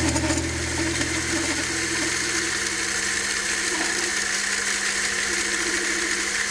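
Mini lathe running steadily, a continuous motor hum and whirr.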